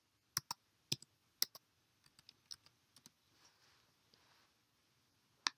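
Faint clicking of computer keyboard keys as a password is typed in, a quick irregular run of taps at first, then fainter, sparser taps, and one sharper click near the end.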